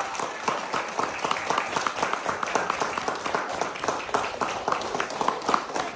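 Audience applauding, many hands clapping irregularly.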